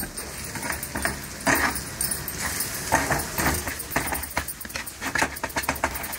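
Metal spatula scraping and tapping on a flat tawa while scrambling eggs into masala, in irregular strokes that come quicker in the last couple of seconds.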